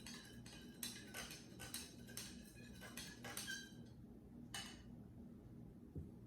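A metal spoon clinking against a cup while stirring blue food colouring into water: a quick series of light clinks, then one more about four and a half seconds in.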